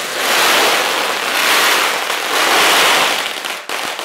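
Strings of Chinese firecrackers going off in a dense, continuous rapid crackle, swelling and easing in waves and dipping briefly near the end.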